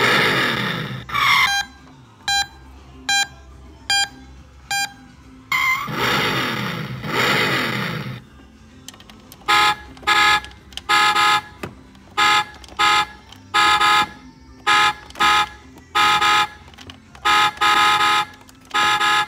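Electronic sound effects from a speaker-modified Road Rippers toy Dodge Ram 1500: two revving engine sweeps, a run of short evenly spaced beeps between them, then a long series of loud horn-like blasts at about one and a half a second.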